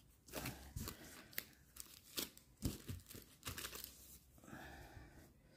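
Cross-stitch fabric and pattern charts in plastic sheet protectors rustling and crinkling as they are handled and turned over, in a series of faint, irregular strokes.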